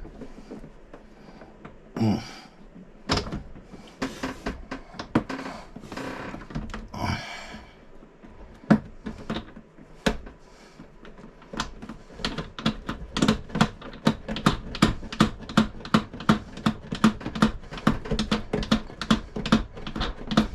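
Hand work on the toilet's mounting hardware: scattered clicks and rustling handling noise, then from about halfway a steady run of sharp metallic clicks, two or three a second, as the hardware is worked with a tool.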